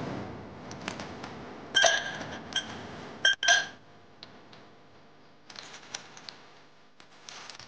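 Glassware clinking on a bar counter: several sharp glass clinks with a short ring, loudest between about two and three and a half seconds in, followed by softer clinks and taps as a glass is handled.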